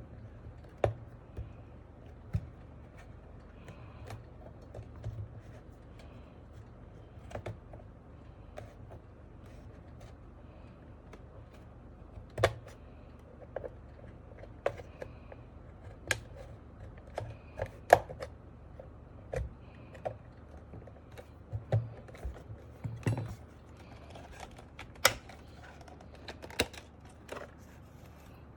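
Scattered sharp plastic clicks and knocks at uneven gaps as the snap-fit clips of an MK870 mechanical keyboard's plastic case are pried apart with a pry tool. The loudest snaps come about twelve and eighteen seconds in.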